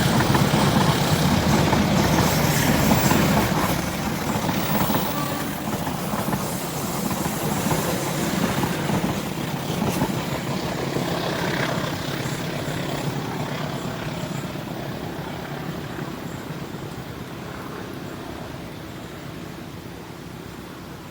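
Diesel-hauled Indonesian passenger train (Joglosemarkerto) running past, its engine rumble and wheel-on-rail noise loudest at first and fading steadily as it moves away.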